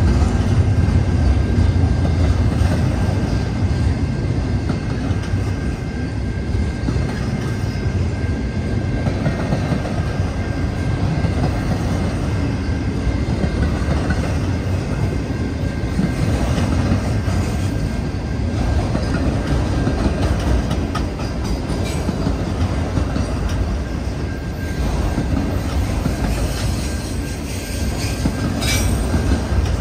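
CN freight train's double-stack intermodal cars and autoracks rolling past close by: a steady, loud rumble of steel wheels on the rails, with a faint steady high-pitched ringing over it.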